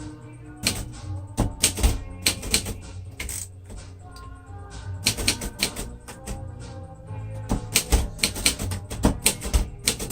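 Typing on a 1941 Royal Companion portable manual typewriter: quick runs of typebar strikes in irregular bursts, with short pauses about four seconds and six seconds in. Background music plays underneath.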